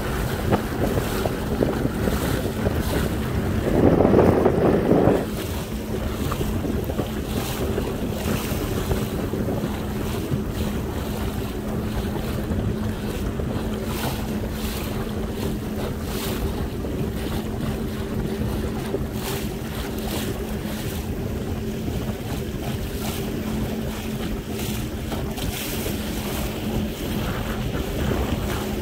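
Jet ski engine running at low speed with a steady hum, under heavy wind buffeting on the microphone and water splashing at the hull. A brief louder surge comes about four seconds in.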